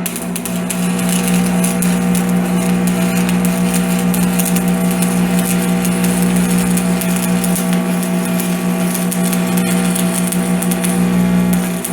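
Electric arc welding a crack in a cast-iron wheel: the welding arc crackles and sputters continuously over a steady electrical hum, with a brief break near the end.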